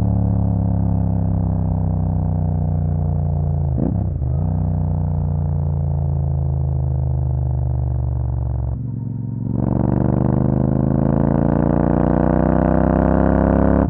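Royal Enfield Super Meteor 650's 648 cc parallel-twin running through a Rhino Racing aftermarket exhaust, heard from on board. The revs fall slowly, with a brief break about four seconds in. After a short dip in the sound, the throttle opens and the revs climb steadily near the end.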